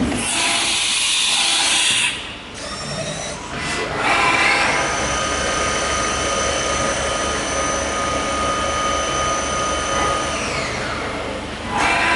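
Mikron-Haas VCE500 CNC vertical machining centre running. A loud hiss fills the first two seconds, a short pitched whir comes in at about four seconds, and then a steady high whine holds before sliding down in pitch and stopping near the end, followed by another short whir.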